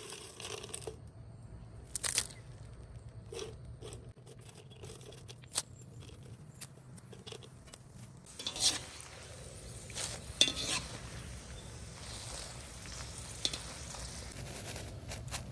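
Dried red chillies sizzling and bubbling as they fry in a wok, with a few sharp clinks of a metal utensil against the wok.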